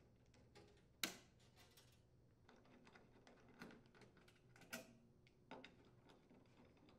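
Faint, scattered clicks and ticks of a screwdriver turning screws out of a trash compactor's sheet-metal bottom panel, with one sharper click about a second in.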